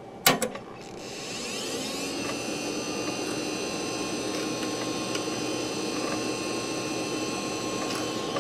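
Two sharp clicks, then a failing Quantum 1 GB IDE hard drive spins up with a whine that rises for about a second and then holds steady, with a faint click near the end. The drive is bad and is struggling to initialise.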